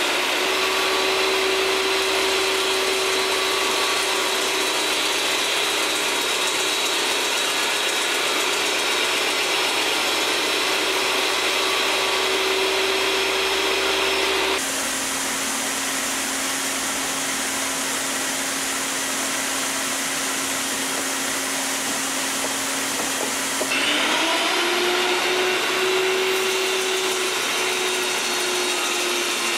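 A compact Bosch table saw and a Milwaukee drill are running together: the drill spins a hinoki blank against the saw blade, shaving it round into a dowel. Steady motor whine over the hiss of cutting. The whine drops in pitch abruptly about halfway through and rises again a few seconds before the end.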